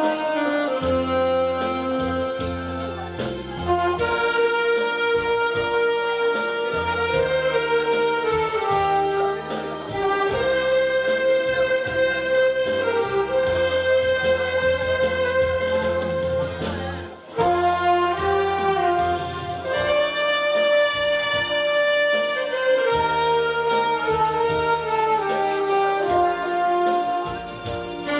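Two alto saxophones playing a slow melody in duet over a recorded backing track with a bass line, dropping out briefly once about two-thirds of the way through.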